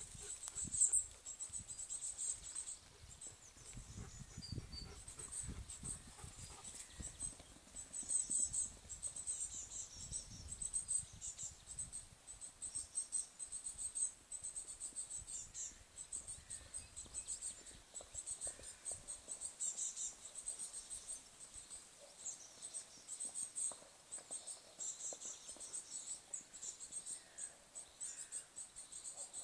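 Crickets chirping in a steady high-pitched, pulsing chorus. Low rumbling thuds come and go during roughly the first third.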